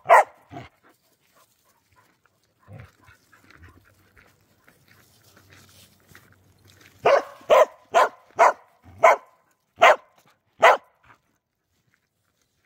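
A dog barking: one bark at the start, then after a pause a run of about seven sharp barks roughly half a second apart, from about seven seconds in to about eleven seconds.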